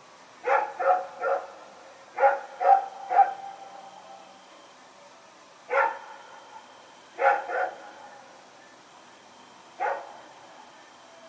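Belgian Malinois barking in short bursts: three quick barks, three more, then single barks and a pair, about ten in all, with a short echo trailing some of them.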